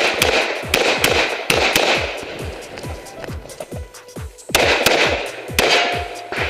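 Several handgun shots, in a quick group at the start and another about four and a half seconds in, each with a short ringing tail. They sit over electronic dance music with a steady kick-drum beat.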